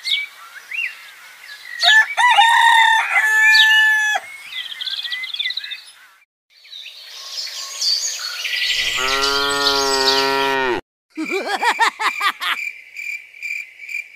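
Farmyard sound effects: birds chirping and chickens with a rooster crowing, then a long low call from a larger farm animal about nine seconds in. Near the end comes a steady, pulsing high beep.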